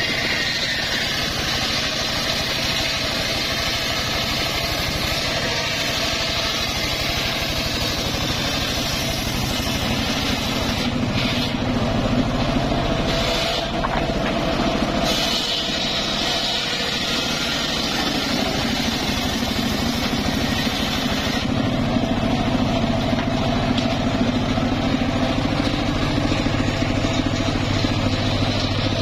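Homemade engine-driven circular sawbench running under load, its large blade ripping mahogany logs lengthwise: a steady engine drone under the hissing noise of the blade cutting through the wood. The sound shifts a little about halfway through and again later.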